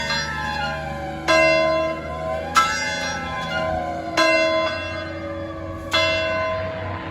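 Large fire alarm bell tolled four times, a stroke every second and a half or so, each ringing on. Beneath it a fire truck's siren winds down in a slowly falling wail, rising briefly once before sinking again.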